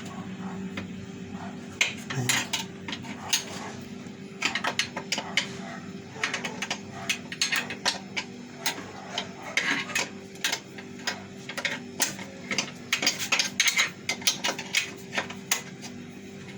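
Metal tools and parts of a meat slicer clinking and clicking irregularly as it is worked loose and taken apart, over a steady low hum.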